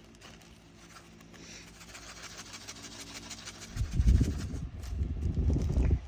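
Small plastic diamond-painting drills rattling as they are handled and poured, growing busier, then a loud low rumble over the last two seconds.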